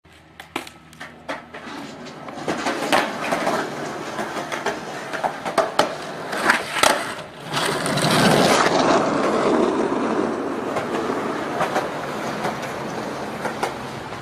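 Skateboard wheels rolling over rough asphalt, with several sharp clacks in the first seven seconds. The rolling grows louder as the board passes close by about eight seconds in, then eases off.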